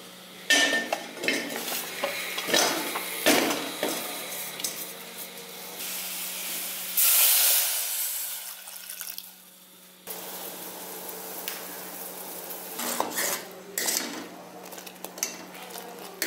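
Lumps of jaggery clattering into a metal pot, then water poured over them in a short steady rush about seven seconds in. After that a metal ladle clinks and scrapes against the pot as the jaggery is stirred to dissolve it.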